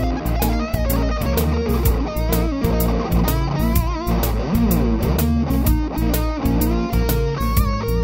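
Background rock music: electric guitar over a steady drum beat.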